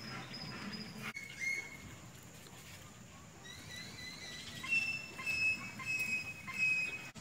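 Birds singing and calling: thin whistled notes and quick glides, with a run of repeated high, steady notes in the second half.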